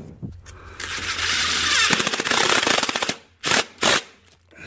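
DeWalt cordless impact driver hammering the thermostat housing bolts tight: one long run of about two seconds, then two short bursts.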